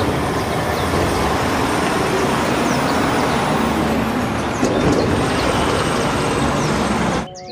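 Heavy diesel garbage trucks driving past one after another, a steady rumble of engines and tyres on the road that cuts off abruptly near the end.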